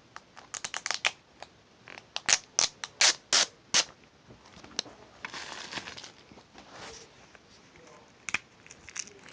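Scissors and fingers working the plastic shrink wrap off a Blu-ray box set: a quick run of sharp snips and clicks, then a rustling tear of plastic.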